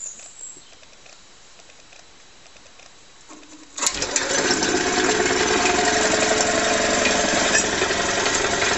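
Vintage Motivair air compressor, a twin-cylinder Frigidaire compressor pump on a quarter-horsepower single-phase motor, switching on with a click about four seconds in and then running steadily and noisily as it starts pumping up the tank.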